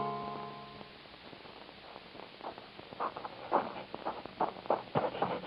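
A bowed-string music bridge fades out in the first second. From about two seconds in, footsteps come at an even pace, two or three steps a second, growing louder as they approach.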